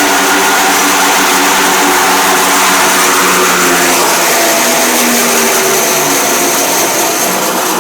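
36-inch Crescent bandsaw running at full speed on its direct-drive motor: a steady machine hum with a hiss over it, easing off slightly near the end.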